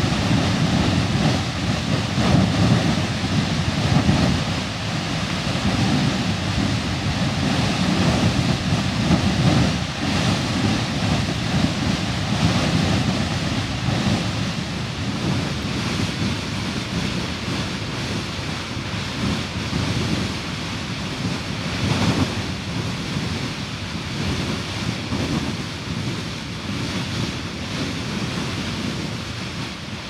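Steady rushing roar of Beehive Geyser erupting, with wind buffeting the microphone in uneven gusts; it eases off slightly toward the end.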